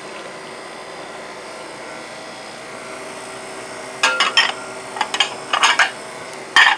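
A steady background hum, then from about four seconds in a run of sharp clinks and clatters as ceramic dinner plates are picked up, stacked and set aside.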